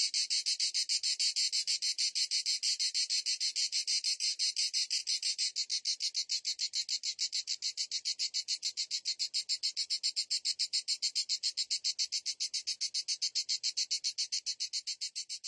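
Cicadas singing: a steady, high, fast-pulsing buzz that starts to fade near the end.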